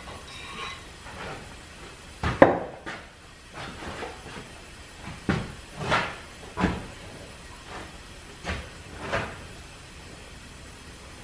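A series of irregular metal clanks and knocks as a steam engine piston and its bolted-on follower are worked with a wrench and lifted out of the cylinder. The loudest clank comes a little over two seconds in.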